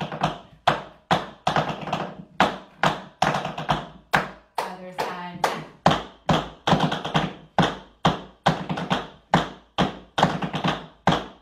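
Tap shoes on a wooden tap board, two dancers drilling nerve taps in unison: each struck dig is followed by a short, fast rattle of taps as the foot is let vibrate, about two strikes a second.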